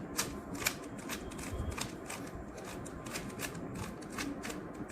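A 3x3 Rubik's Cube being turned quickly through an algorithm: irregular plastic clicks and rattling as the layers snap round, two or three clicks a second.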